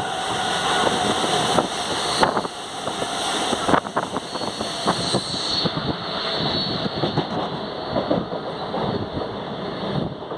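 Train running at speed, heard from inside the carriage: a steady rushing rumble of wheels on rail with many short, sharp clacks.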